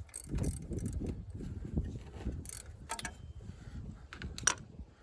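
3/8-inch ratchet with a 13 mm socket backing out the center bolt of a serpentine belt idler pulley: irregular ratchet clicking and metal clinks, with a sharp click about four and a half seconds in.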